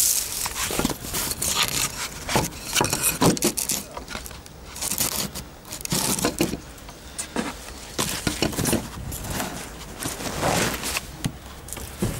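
Irregular scrapes and crackles of someone moving about over dry leaves on the ground.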